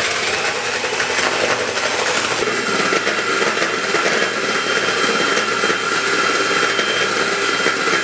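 Electric hand mixer running steadily, its beaters whisking eggs and sugar in a plastic bowl to make them frothy.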